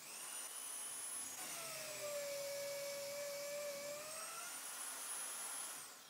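Electric drill starting up and boring a hole into plywood: its whine drops in pitch about a second and a half in as the bit bites into the wood, rises again around four seconds in as the bit comes free, then the motor is switched off and winds down near the end.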